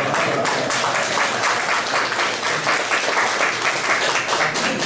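Audience applauding, a steady clatter of many hands clapping.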